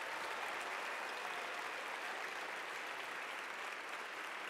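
Audience applauding steadily, tapering off slightly toward the end.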